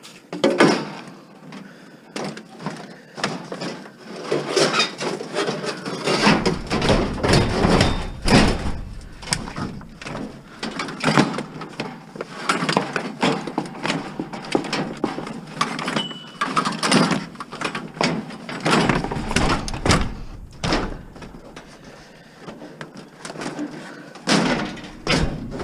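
Scrap metal and junk clanking and banging as pieces are thrown and shifted onto a packed load, a long run of irregular knocks and clatters.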